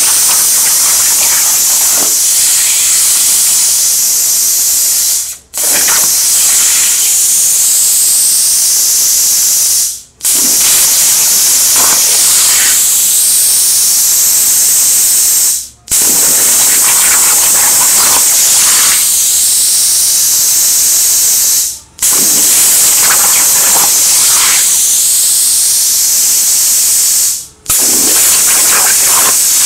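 CNC plasma torch cutting 16-gauge mild steel: a steady, loud hiss of the arc and its air stream. It cuts out suddenly five times for well under a second each, as the arc goes out at the end of one cut and re-fires to pierce the next.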